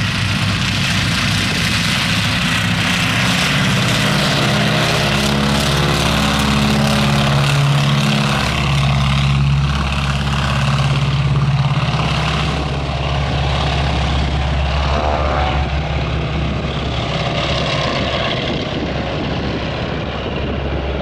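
Piston aircraft engine and propeller running loudly and steadily, with the engine note drifting slightly in pitch.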